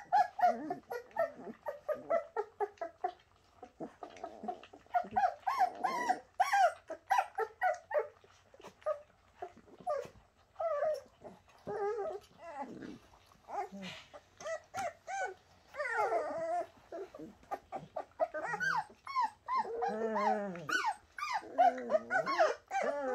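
Bernese mountain dog puppies whining and yipping: a rapid run of short, high calls, with a few longer whines near the end.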